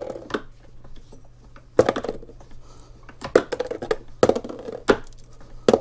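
Lead wire being sheared into slug cores in a hand-lever core cutter with .210 bushings. It gives a series of sharp metallic clacks, about one a second, as the lever is swung to cut off each piece.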